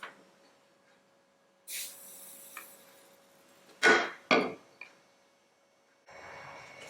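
Carriage-lamp parts being handled on a workbench: a brief scraping rustle, then two sharp knocks about half a second apart. A steady hiss starts near the end.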